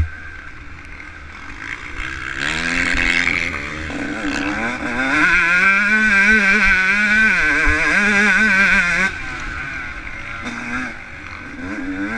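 Yamaha YZ125 two-stroke single-cylinder dirt bike engine revving hard under load, its pitch wavering up and down as the throttle works. It eases off about nine seconds in. There is a sharp knock at the very start.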